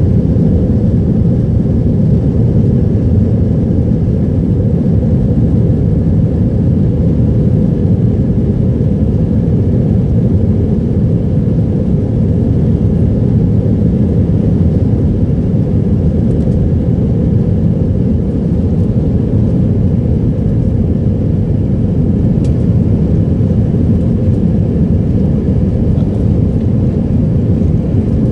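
Jet airliner on the ground, heard inside the cabin: a loud, steady low rumble of the engines and the plane rolling on the runway.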